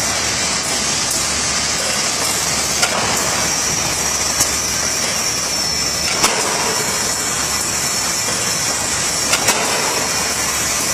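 Wire hanger welding machine running: a steady mechanical noise with a high hiss, broken by a few sharp clicks.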